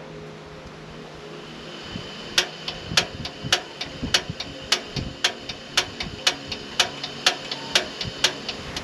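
Knife chopping on a cutting board: a steady run of sharp strokes, about two a second with lighter ones between, starting about two seconds in.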